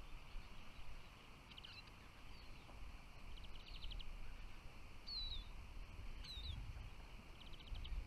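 Small finches calling: a few quick, rattling trills and some short, down-slurred chirps, high-pitched and fairly faint.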